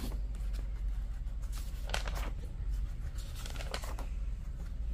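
Pages of a paper notebook being flipped, giving a few soft rustles about two seconds in and again a second or so later, over a low steady hum.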